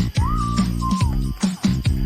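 Background music with a steady beat and bass, and a short whistled melody line over it near the start.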